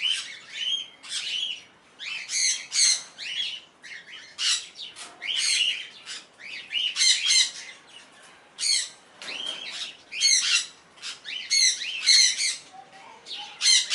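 Small parrots squawking and screeching, harsh high calls repeated again and again, several overlapping at times.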